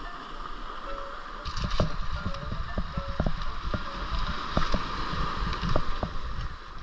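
Heavy surf surging and breaking over a pebble beach, with water sloshing and rushing around people wading in. The wash grows louder and choppier about a second and a half in.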